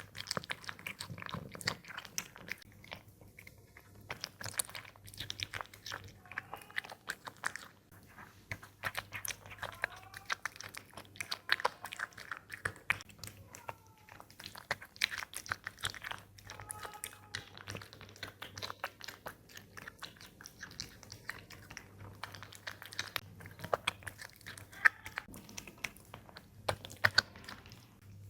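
A cat chewing and biting its food close to the microphone: many quick, irregular clicks of chewing, several a second, with short pauses.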